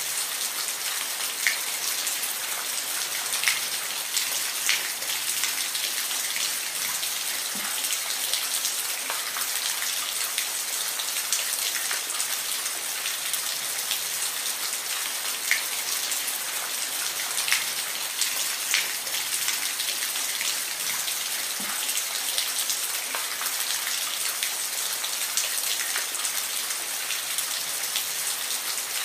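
Steady rainfall: an even hiss of rain with individual drops ticking sharply here and there.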